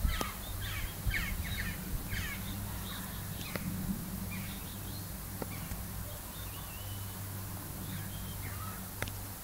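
Small birds chirping and twittering in quick short calls, busiest in the first two seconds and more scattered after, over a steady low hum.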